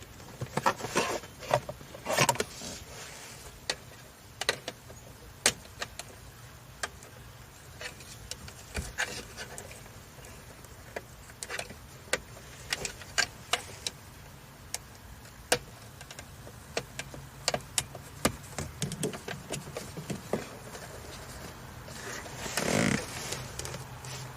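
Irregular small clicks and taps of hard plastic being handled: the connector clips and housing of a car's overhead map-light console being worked loose, with a brief rustling scrape near the end.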